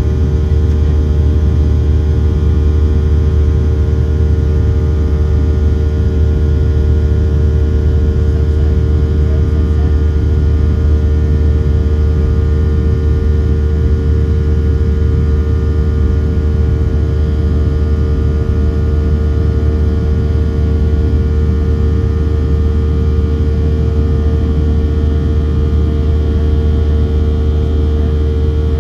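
Steady cabin noise of a Boeing 737-700 with its CFM56-7B turbofans running: a constant low rumble with a steady hum and no change in pitch, heard from inside the cabin.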